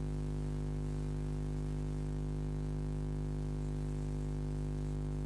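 Steady low electrical hum with a buzzy stack of overtones over faint hiss: mains hum picked up in the microphone's audio chain.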